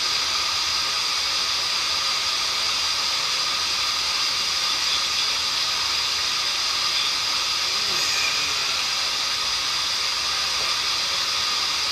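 Water rushing over a small river falls: a steady, even hiss.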